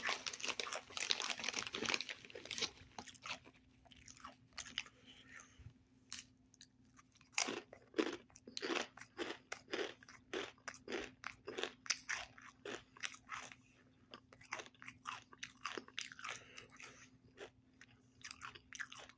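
Close-up chewing of Takis rolled tortilla chips, with sharp dry crunches several times a second. A dense crackly spell at the start, quieter chewing in the middle, then a fresh run of loud crunches from about seven seconds in.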